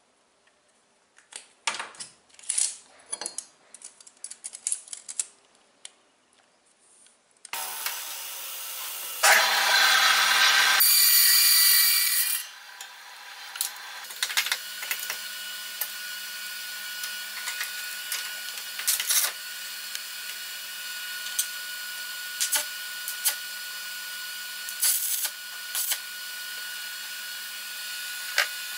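Light taps and scrapes of a steel bar and scribe being handled on a wooden block. Then a power tool runs loudly for about three seconds, followed by a steady hum with a faint steady whine and scattered metal clicks and taps.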